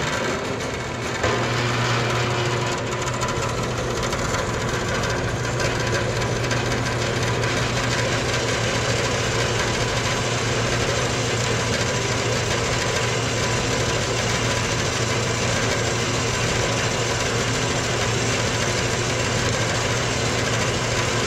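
Small horizontal metal-cutting bandsaw starting up and running steadily, its blade cutting through a short piece of round metal stock. The sound comes in suddenly and grows fuller about a second in.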